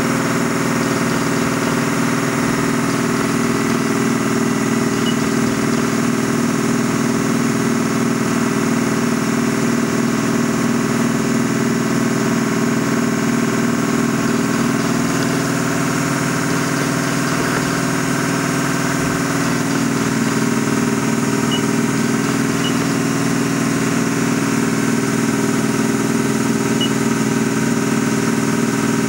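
Haas SL-30T CNC lathe running under power: a steady mechanical hum. A higher whine joins in for a few seconds around the middle.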